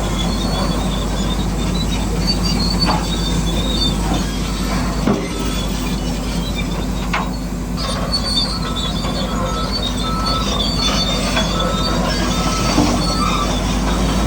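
Radio-controlled model construction machines working: electric motors and gearboxes whining steadily with high squealing tones, broken by a few short knocks.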